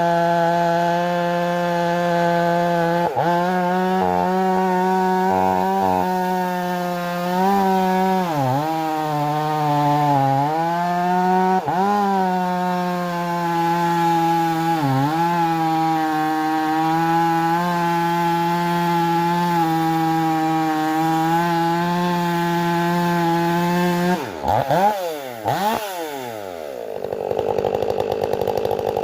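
Stihl MS 500i fuel-injected two-stroke chainsaw held at full revs, cutting wood, its pitch sagging briefly under load a few times. Near the end the revs drop and climb back several times in quick succession.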